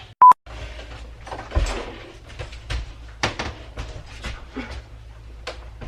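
A short, loud beep just after the start, then irregular knocks, bumps and scrapes as an RV refrigerator is handled and worked into its cabinet opening.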